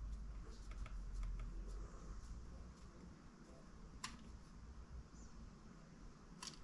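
Faint handling of small plastic model-kit parts, with light ticks and scrapes as a part is screwed in, and a sharper click about four seconds in and another near the end.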